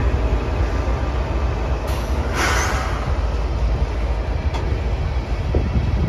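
CN GE diesel locomotives (ES44AC/ET44AC units) passing slowly, their engines and wheels giving a steady low rumble. A short hiss comes about two and a half seconds in.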